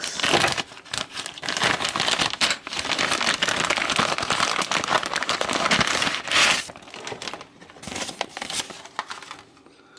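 Packaging crinkling and rustling as it is handled and unwrapped, dense for about seven seconds, then thinning to a few scattered crackles and dying away near the end.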